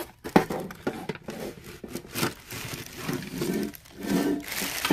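Sharp knocks and clatter from a metal saltine cracker tin being tipped over on a table and its contents slid out, with light rustling of a plastic bag.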